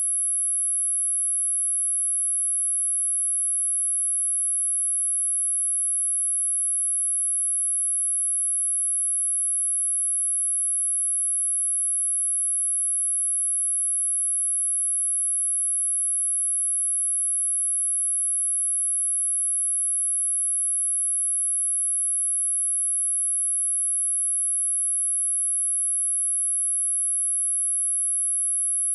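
A steady, unbroken 10,895 Hz sine-wave test tone: one pure, very high-pitched whistle, with no other sound.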